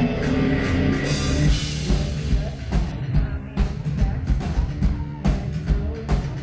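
Live electronic rock band playing through a club PA: guitar and synth tones, with a steady drum beat coming in about halfway through and a woman singing.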